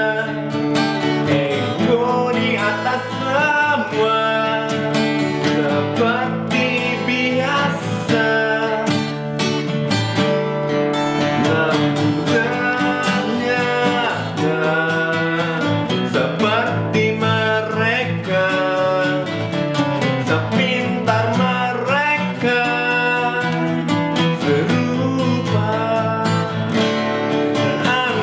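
Two steel-string acoustic guitars played together, with a man singing over them.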